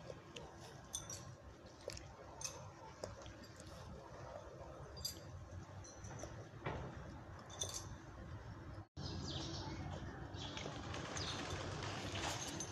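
Scattered short bird chirps over a steady low rustling background, the sound cutting out for an instant about nine seconds in.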